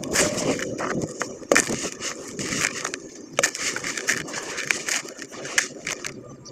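Charcoal concrete crumbling in water: a dense, irregular crackling and crunching with scattered sharp snaps, the loudest about a second and a half in and again near the middle.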